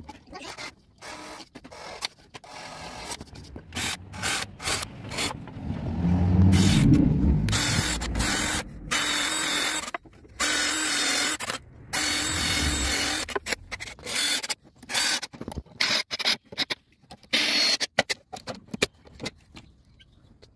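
Makita cordless drill boring into wooden boards in many short bursts that start and stop abruptly, the longest and loudest run about six to ten seconds in.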